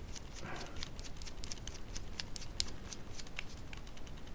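Irregular small clicks and ticks of a hex screwdriver turning small black machine screws into a carbon-fibre gimbal plate, tightening them a little at a time.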